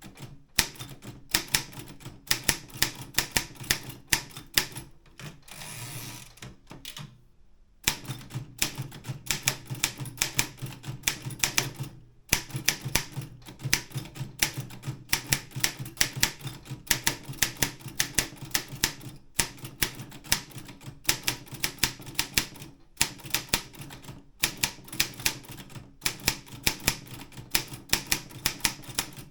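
Optima M12 manual office typewriter being typed on, with quick runs of sharp key strikes several a second. There is a short pause about six seconds in, filled by a brief sliding noise, before the typing resumes.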